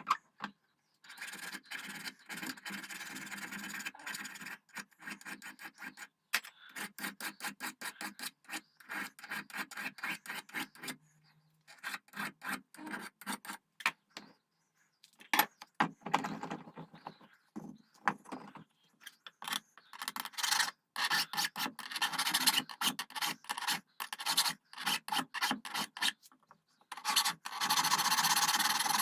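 Hand filing on metal: runs of rapid back-and-forth file strokes, several a second, separated by short pauses.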